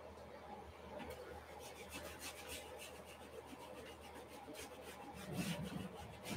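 Acrylic paint being worked onto a stretched canvas: faint, short scrubbing strokes against the canvas surface, repeated a couple of times a second from about a second in.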